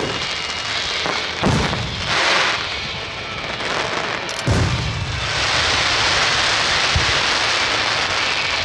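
Aerial firework shells bursting: three deep booms about a second and a half to three seconds apart, then from about five seconds in a long, steady hiss that stays loud.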